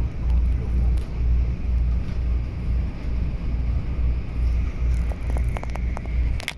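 Hong Kong Airport Express train heard from inside the carriage while running at speed: a loud, low rumble that swells about twice a second, with a few faint clicks near the end.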